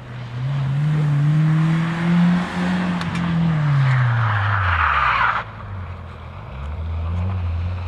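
Rally car engine rising in pitch under acceleration, then falling in pitch as the car passes. A loud hiss joins it about four seconds in and cuts off suddenly a second and a half later, leaving the engine running at a lower pitch.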